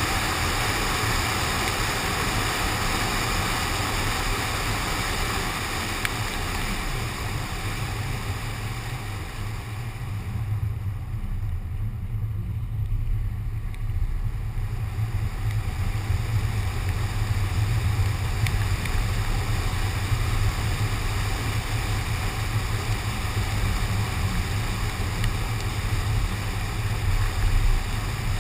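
Car driving on a wet road in the rain: a steady low rumble of road and wind noise with tyre-spray hiss, picked up by a GoPro mounted on the car's window. The hiss fades about ten seconds in and builds back up a few seconds later.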